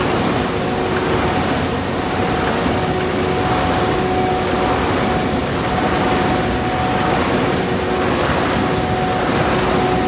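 Keshenglong K6 flexo printer running in production: a loud, steady machine noise with two constant tones in it. The higher tone breaks off briefly a few times.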